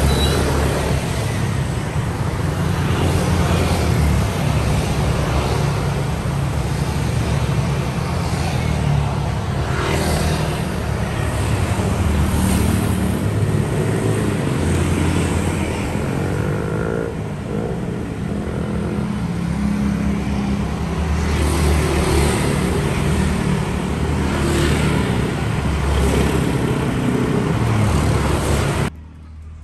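Road traffic noise, with vehicle engines running, that cuts off abruptly near the end.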